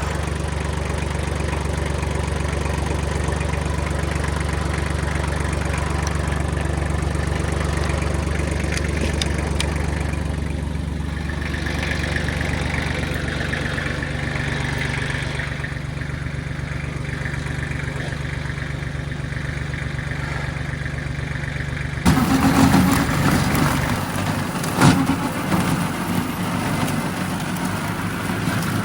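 Kubota machine's diesel engine running steadily at idle. About three quarters of the way in, the sound changes abruptly to a louder, rougher engine noise with a few knocks.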